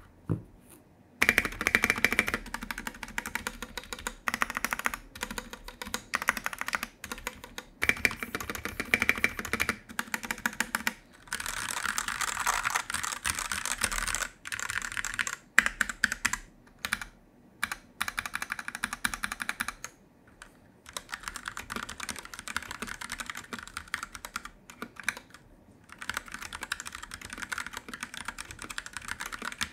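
Typing on a Noir N1V3 mechanical keyboard fitted with Gateron Yellow linear switches: fast runs of keystrokes broken by short pauses. The sound is muted, damped by an added layer of foam.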